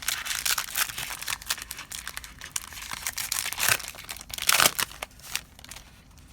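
A trading-card booster pack's wrapper being torn open and crinkled, a dense crackle with two louder rips about three and a half and four and a half seconds in.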